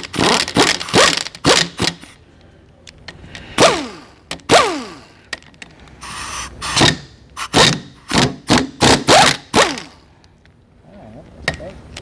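Sharp metal knocks and clanks in irregular clusters, some ringing briefly, as a socket stuck on a transfer case is worked loose.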